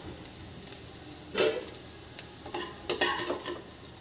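Steel spoon scraping and knocking against a non-stick kadhai as fried bitter gourd rings are scooped out, over a faint steady sizzle of hot oil. The loudest scrapes come about a third of the way in and again a few times near three seconds.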